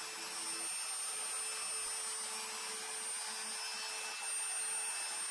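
Router spindle on a Mostly Printed CNC running steadily with a surfacing bit, skimming the wooden wasteboard flat. A steady motor whine with a hiss over it.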